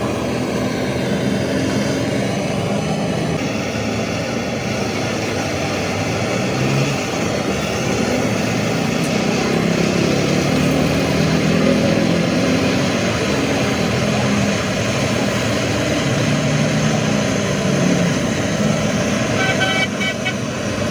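An engine running steadily, with a short horn-like toot near the end.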